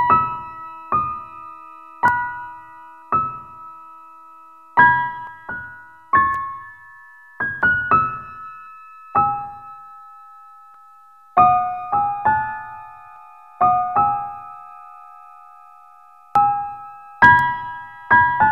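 Slow piano music: sparse single notes and chords, each struck and left to ring out, about one every second.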